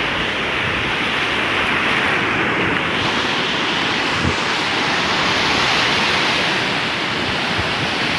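Sea waves washing on the shore under strong wind buffeting the microphone, a steady rushing noise.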